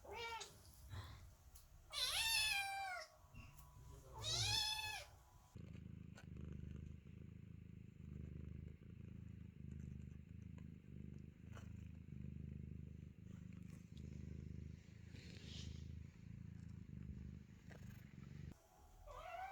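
Kittens meowing: three loud, drawn-out cries that rise and fall in the first five seconds. Then a cat purring steadily in a low, pulsing rumble for about thirteen seconds, broken by another meow at the very end.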